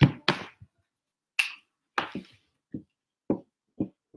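Short knocks and taps from handling a whiteboard and marker. Two louder knocks come at the start and a brief hiss about a second and a half in. Near the end comes a run of light taps about half a second apart.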